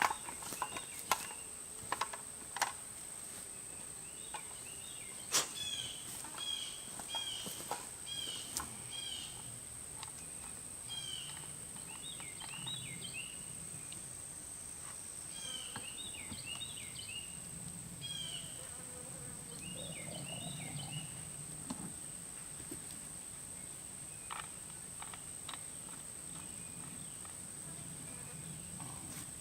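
Outdoor woodland ambience: a steady high-pitched insect drone, with a bird repeating short chirping calls for a while in the middle. A few sharp knocks or clicks come near the start and again here and there.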